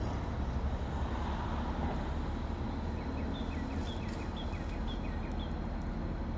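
Crane engine running with a steady low drone. Partway through, a bird calls a quick series of about five short high chirps.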